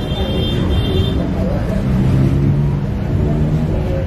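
Low background chatter of a crowd of spectators, with a steady low drone in the second half.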